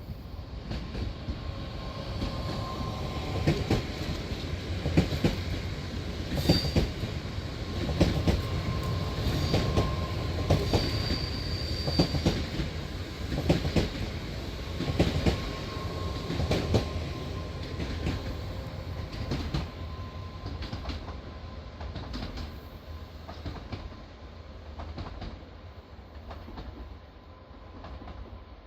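Passenger train running on the rails: a steady rumble with repeated clicks of wheels over rail joints and short high wheel squeals. It is loudest in the middle and fades toward the end.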